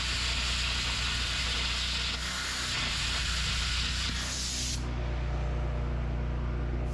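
Oxy-fuel cutting torch cutting through a steel spring perch on a truck axle housing: a loud steady hiss of the cutting jet. The hiss stops suddenly about five seconds in, when the cut is let off, leaving a low steady hum.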